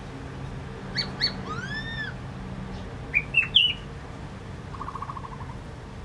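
Black-throated laughingthrush calling. Two short whistled notes come first, then a clear whistle that rises and falls, then a quick run of sharper, higher notes about three seconds in, which is the loudest part. A soft rapid rattle follows about a second later.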